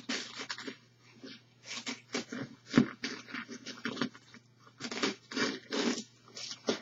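Plastic wrap being pulled and torn off a tightly wrapped bundle, crinkling and crackling in short, irregular bursts.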